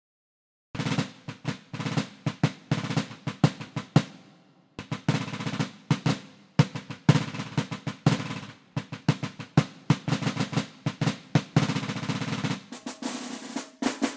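Snare drum playing a solo intro of rolls and sharp strikes. It starts about a second in and breaks off briefly around four seconds in before carrying on.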